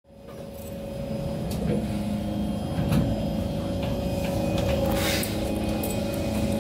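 Cabin sound of a standing SMRT C151 train car, fading in: a steady hum from the car's onboard equipment over a low rumble. A few clicks come early, and a short hiss about five seconds in as the doors close.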